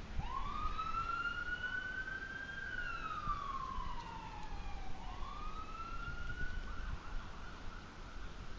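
Emergency-vehicle siren wailing: its pitch rises, holds, then falls slowly over about two seconds, and rises again about five seconds in before fading near the end.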